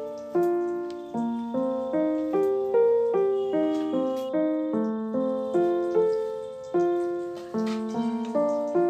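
Background keyboard music: a melody of single notes, each struck and then fading, about two to three a second.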